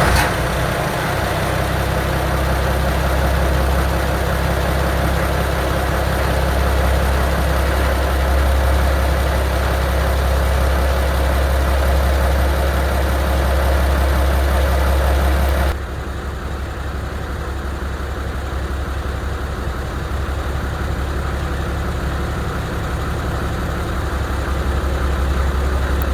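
A boat's engine idling steadily. About sixteen seconds in, the sound drops abruptly to a quieter, thinner version of the same running engine, then cuts off at the end.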